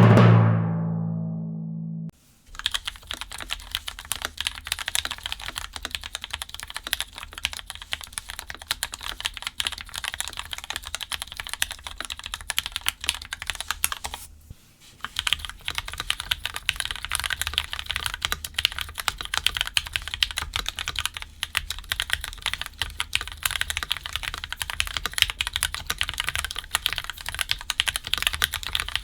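A low musical swell fades out about two seconds in. Then comes fast, continuous typing on a Cadence 75 custom mechanical keyboard in its classic build. After a half-second pause about halfway, the typing resumes with the board in a top-mount build.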